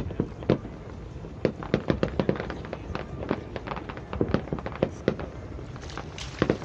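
Fireworks display going off: an irregular series of sharp bangs and crackling pops, bunched most thickly about a second and a half in, around four seconds in, and again near the end.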